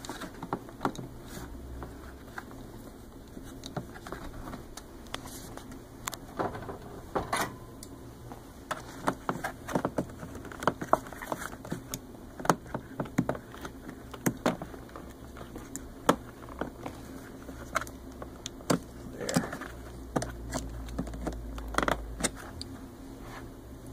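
Irregular metal clicks and scrapes of a thin screwdriver and pliers working at a crimped hose clamp on a pump's hose fitting, prying the clamp open at its seam.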